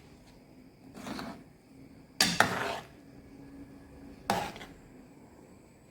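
Kitchen cookware and utensils being handled. There is a soft scrape about a second in, two sharp knocks just after two seconds, and a single knock a little after four seconds.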